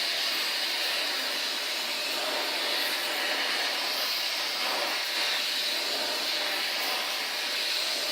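Gas torch flame hissing steadily while it heats a bent steel part toward cherry red for straightening.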